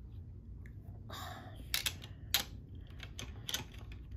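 LEGO plastic bricks clicking and clacking as they are handled and pressed together, an irregular series of sharp clicks, with a short rustle about a second in.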